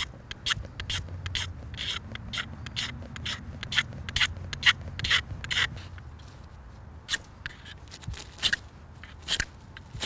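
Buck knife blade scraping down a magnesium fire-starter rod to shave magnesium onto cedar bark tinder: a quick series of short, sharp scrapes, about two or three a second, with a brief pause past the middle.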